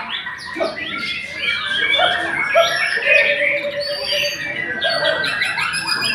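White-rumped shamas (murai batu) singing, several birds at once: a dense, unbroken run of overlapping whistles, chirps and trills.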